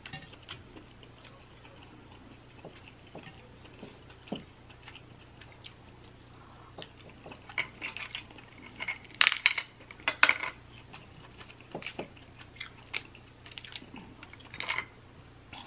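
Close-miked eating of Dungeness crab legs: shell being cracked and picked apart by hand, with chewing, heard as scattered small clicks and cracks. The loudest run of cracks comes about nine to ten seconds in.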